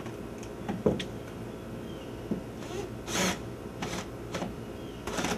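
Wooden framing lumber knocking and scraping as it is handled and set in place, with one sharp knock about a second in and several softer knocks and brief scrapes after it, over a faint steady hum.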